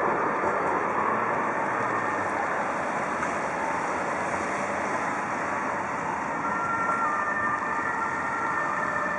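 Street traffic noise with Dresden low-floor trams rolling past on wet, slushy tracks and road, a steady wash of rolling noise. About two-thirds of the way in, faint steady high tones join it.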